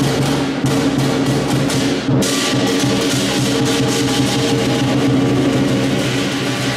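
Live lion dance percussion: a big drum beaten in a rapid, dense rhythm under clashing cymbals and a ringing gong. The cymbal crashes break off briefly about two seconds in, then resume.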